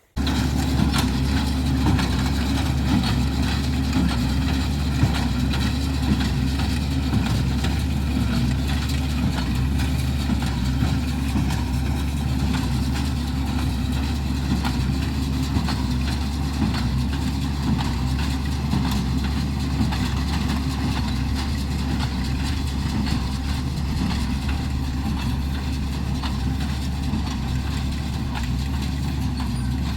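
Tractor engine running steadily with a low, even drone. It starts suddenly at a cut.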